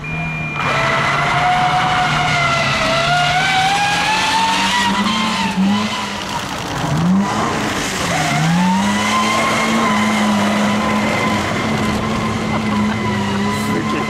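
Toyota HiAce rally van engine revving hard under acceleration, over tyre noise on a wet surface. The engine note climbs, drops sharply two or three times around the middle, then climbs again and holds high.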